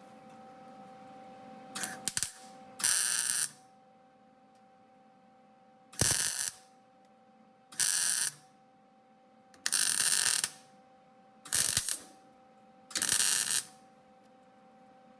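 MIG welder laying tack welds on sheet metal: six short crackling bursts, each under a second long and one to three seconds apart, with a few brief sputters just before the first. A steady hum runs underneath.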